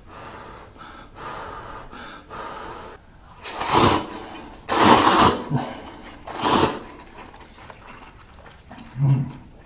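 Instant ramen noodles slurped loudly three times, each slurp a second or less and about a second apart, after a few seconds of softer eating sounds; a short low thump near the end.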